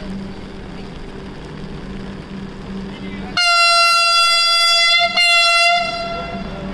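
Vande Bharat Express (Train 18 electric multiple unit) sounding its horn on approach: one steady-pitched blast of about a second and a half begins about three and a half seconds in, breaks for an instant, then a shorter blast follows and fades away.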